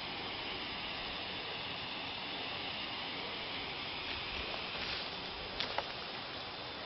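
Smoke grenade venting with a steady hiss that eases slightly after a few seconds; two sharp clicks come about two-thirds of the way through.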